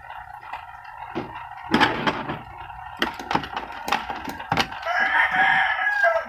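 A rooster crows once, starting about five seconds in: one long call lasting over a second. Before it come a few sharp clicks and knocks from hands handling a TV's metal chassis and circuit board.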